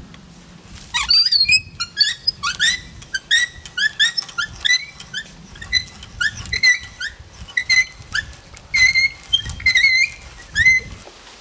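Hand brace with an auger bit boring into a wooden pole, squeaking with each turn of the crank: a quick run of short, high squeaks that starts about a second in and stops shortly before the end.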